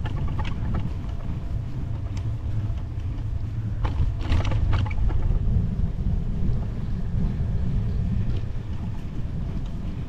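Wind buffeting the microphone of a camera mounted on a road bike climbing a steep hill, a steady low rumble. A brief burst of rattling clicks comes about four seconds in.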